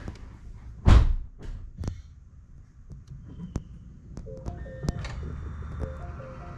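A heavy thump about a second in, the loudest sound, followed by several sharp clicks over a low rumble. From about four seconds in, a short pattern of stepped electronic tones repeats every second and a half over steady higher tones.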